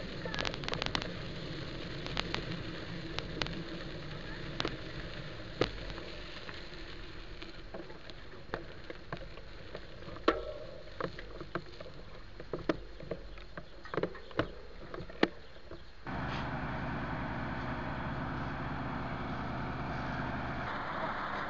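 Vehicle engine running while it drives over a bumpy dirt track, with scattered sharp knocks and clicks from the rough ground. About sixteen seconds in, the sound switches abruptly to a steady heavy engine hum: a fire engine running at the scene.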